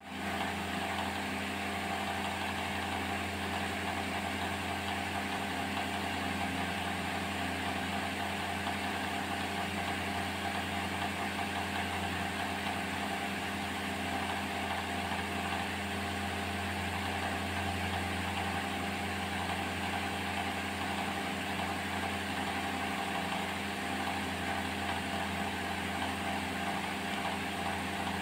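A steady machine hum, like a motor running, unchanging throughout.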